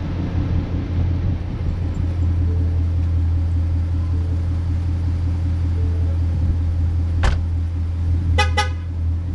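Steady low rumble, then a sharp click and two short car-horn chirps in quick succession near the end.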